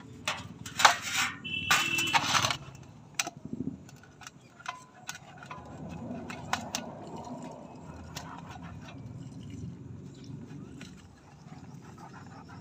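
A knife and tilapia handled in a stainless steel basin: a few loud scraping, clattering sounds in the first couple of seconds, then lighter clicks and scrapes as the knife scores the fish through its scales.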